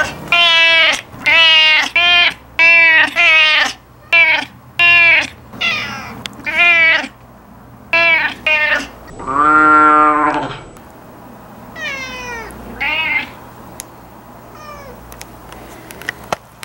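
A domestic cat meowing insistently for food: a quick run of short meows, one longer and louder meow about ten seconds in, then a few fainter meows.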